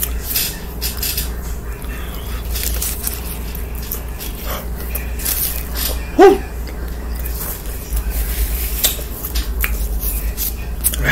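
Close-up eating sounds: chewing, lip-smacking and the burrito's paper wrapper rustling, as a string of short clicks and crinkles over a steady low hum. About six seconds in there is one brief squeaky, pitched sound, the loudest moment.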